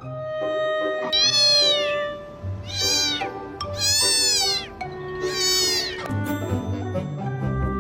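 A domestic cat meowing four times, each call rising and falling in pitch, over background music.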